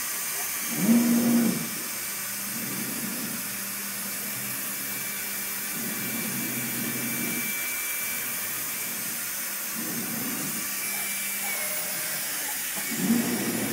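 2007 MultiCam 3000 Series CNC router running a program with its air-cooled spindle spinning above the board without cutting: a steady rush of the spindle's compressed cooling air, with motor hums that swell and fade every few seconds as the gantry moves.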